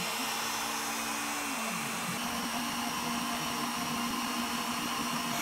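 Bosch router spindle on a CNC router running steadily at full speed with a V-bit, a high-speed motor whine and hiss. A lower whine from the machine steps up in pitch near the start and falls back about a second and a half in as the machine moves the bit into position to engrave.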